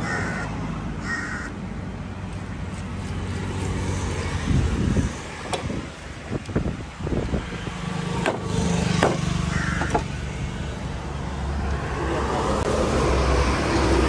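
Machete blade knocking a few times on a wooden chopping block as fish is cut. Short bird calls come in a few times over a steady traffic hum, and a truck engine grows louder as it passes near the end.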